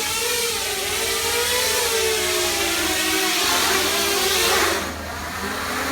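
Electric motors and propellers of a remote-control flying Millennium Falcon model whirring in flight over a strong airy hiss. The pitch wavers up and down as the throttle changes, and the sound eases off about five seconds in.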